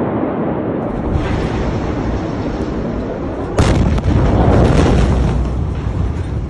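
A steady noisy rumble, then about three and a half seconds in the sudden loud blast of a huge explosion of stored ammonium nitrate, which runs on as a deep rumble for about two seconds.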